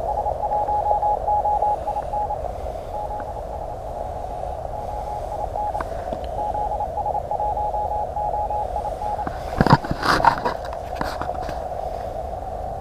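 Morse code (CW) from a ham radio: a single keyed tone sending dots and dashes in three runs over steady, narrow-filtered receiver hiss. A short clatter of knocks comes about ten seconds in.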